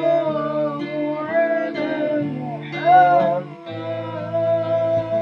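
A sholawat (Islamic devotional song) sung by a single voice holding long notes that bend in pitch, over a steady instrumental accompaniment.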